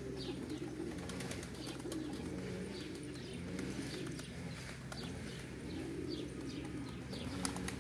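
A flock of Van pigeons cooing continuously, with occasional wing flaps as birds land among them.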